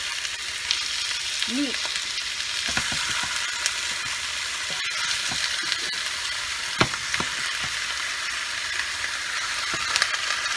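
Chicken pieces sizzling steadily in hot oil with ginger and garlic as they are sautéed. A few sharp knocks, the loudest about two-thirds of the way through.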